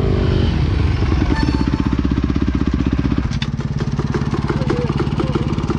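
Motocross bike engine running at steady revs, dropping to a lower, steady pitch about three seconds in.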